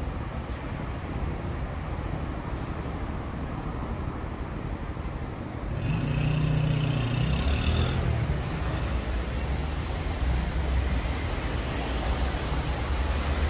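City road traffic at an intersection on wet asphalt: a steady low rumble of idling and distant cars. About six seconds in, cars pull away and pass close by, with a louder engine drone and tyres hissing on the wet road.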